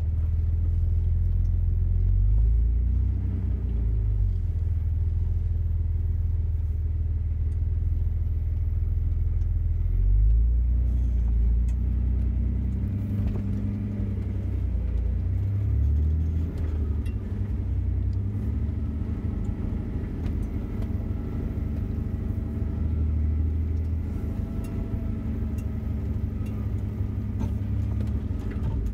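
Jeep engine running at low speed as the vehicle crawls along a rough, rutted dirt trail, a steady low rumble that rises and falls with the throttle, with a few short knocks partway through.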